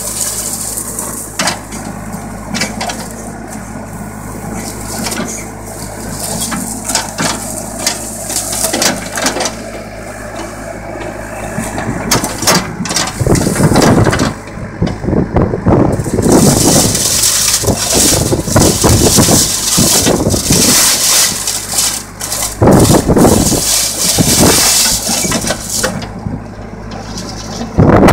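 JCB backhoe loader's engine running steadily while its bucket tears dry, dead palmyra palm fronds off the trunk, with many sharp cracks and snaps of the leaves. The crackling and rustling grows denser and louder in the second half.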